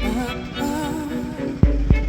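Background music with a sung melody, a steady bass and a regular drum beat.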